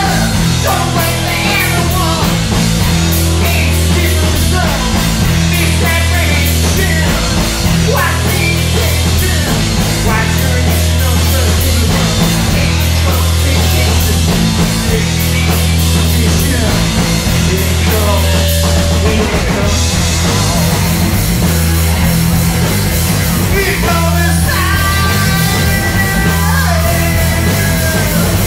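Live rock band playing loud and steady: a singer over distorted electric guitar, electric bass and drum kit.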